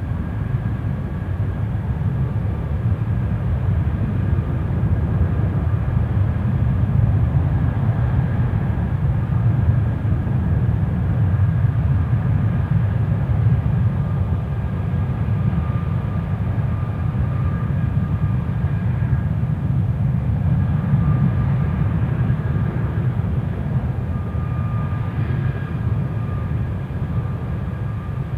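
Airbus A320's IAE V2527 turbofan engine running at high power on a stationary engine run-up: a steady deep rumble with thin, steady whining tones above it.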